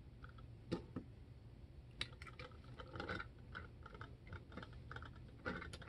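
Faint clicks and light taps of hands working a 1:87 scale die-cast model mobile crane. There is a sharper click just under a second in and another about two seconds in, then a run of small clicks.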